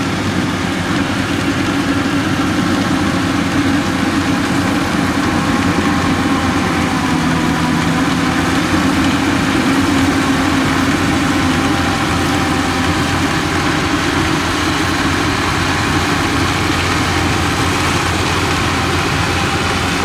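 Yanmar YH850 rice combine harvester's diesel engine and machinery running steadily.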